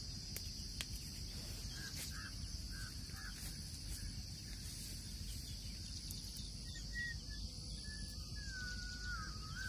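Steady high-pitched insect drone, with a few short bird chirps two to three seconds in and a longer warbling bird whistle that slides down in pitch near the end.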